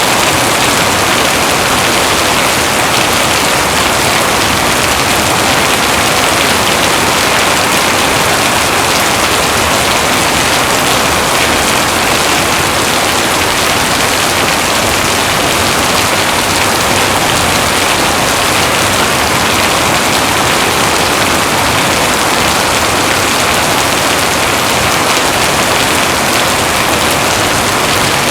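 Heavy rain falling steadily, a dense, even hiss of rain with no let-up.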